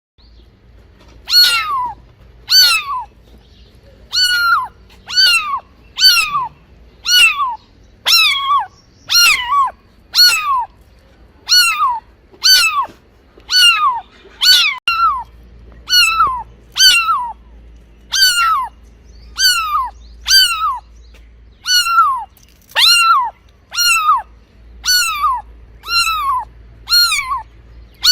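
A kitten meowing over and over, about once a second: short, high mews that each fall in pitch.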